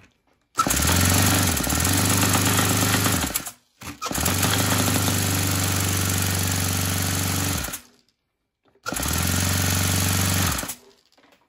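Electric starter spinning over a Saito FA100 four-stroke glow engine in three steady bursts, the last one shorter. The engine never fires: fuel blows back into the tank instead of being drawn in, which the owner puts down to the valve timing being off.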